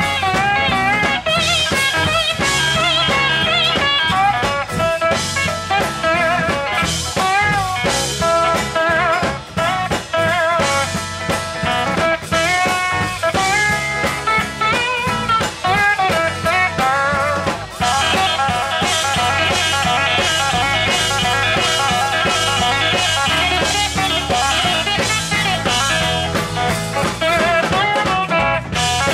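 Live instrumental sacred steel music: a steel guitar leads with gliding, wavering notes over electric lead guitar, bass guitar and drums.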